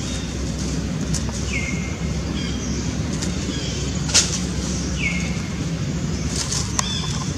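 Dry leaves crackling and rustling, with a few sharp clicks as a young macaque picks through them, over a steady low rumble. Two short high chirps that drop in pitch come about a second and a half in and again near five seconds.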